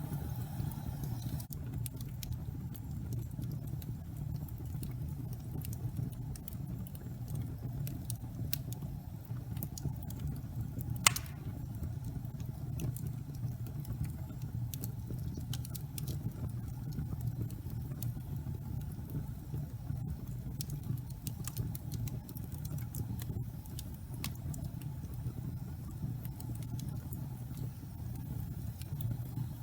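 Wood fire burning in a fireplace: a steady low rumble of flames with scattered crackles and snaps, and one sharp, loud pop about eleven seconds in.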